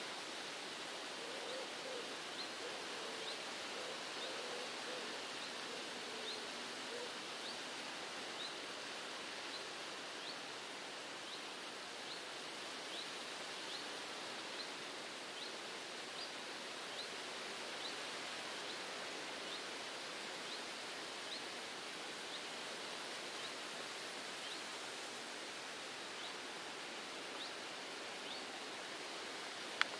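Outdoor ambience: a steady hiss, with a small bird repeating a short high chirp about once a second. A single sharp click near the end.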